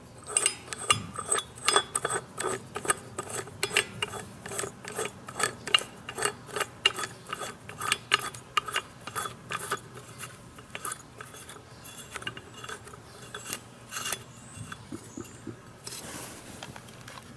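A retaining bolt and washer being turned by hand into the shaft of a Polaris drive clutch: a run of small metallic clicks and scraping, about two or three a second, thinning out after about ten seconds.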